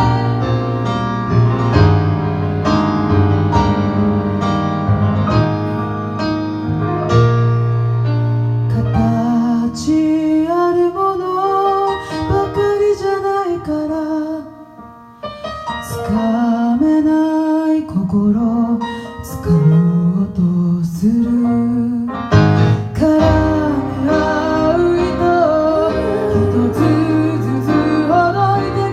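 Live pop ballad: women singing over piano accompaniment. The first nine seconds or so are piano chords alone, then the voices come in; the sound drops away briefly about halfway through before the singing resumes.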